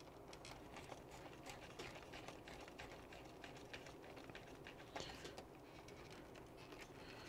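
Near silence with faint, scattered small clicks and light handling noise from hands working on the plastic chassis of an RC truck while removing screws. The clearest click comes about five seconds in.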